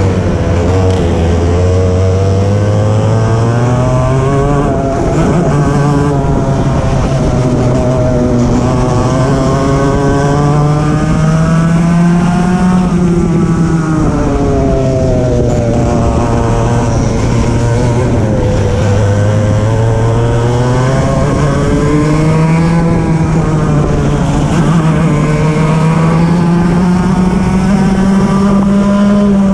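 Racing kart engine heard from on board, running hard the whole time: its pitch climbs steadily along the straights and drops back into the corners, about five times over.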